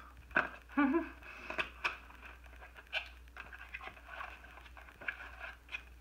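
A small cardboard box being handled and opened by hand: scattered light scrapes, taps and rustles of the lid and packaging, with a brief voiced sound about a second in.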